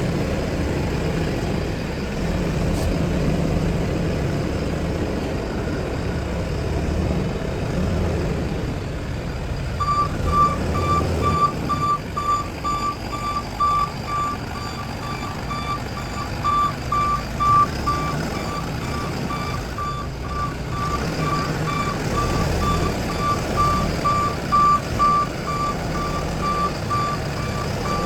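Mini wheel backhoe loader's engine running steadily, and about ten seconds in its reversing alarm starts, beeping rapidly at about four beeps a second.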